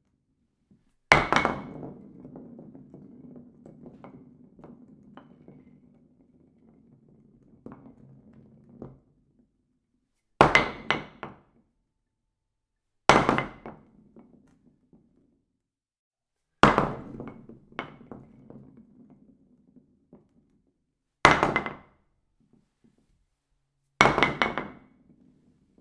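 A bowling ball crashing into tenpins six times, each a sharp crash followed by pins clattering. After the first crash, a low rumble and scattered rattles carry on for several seconds.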